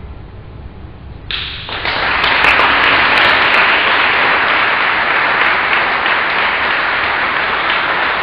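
Audience applause begins about a second in and quickly swells to steady clapping.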